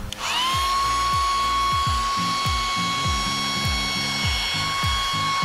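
Electric air pump starting up a moment in, its whine rising quickly to a steady pitch and running on as it inflates an inflatable boat. Background music with a steady beat plays underneath.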